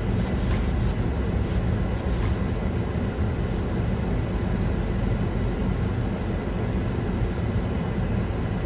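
Steady low rumble heard inside a parked car's cabin, with a few crackling clicks in the first two seconds or so.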